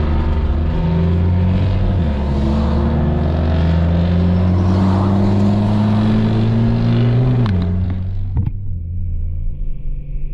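Infiniti Q50 3.0t's twin-turbo V6 heard from inside the cabin, accelerating through the gears: its pitch drops at upshifts about two seconds in and near seven and a half seconds, climbing in between. Near the end it eases off and the engine goes quieter.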